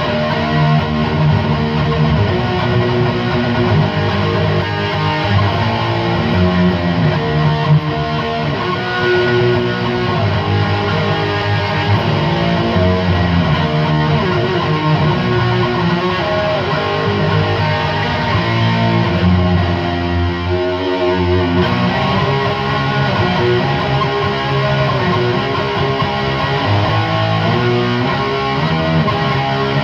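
Electric guitar played through a Chupacabra 100 amplifier with the master turned up and the clipping diodes engaged, giving a heavily distorted tone; continuous riffing with a brief let-up about two-thirds of the way in.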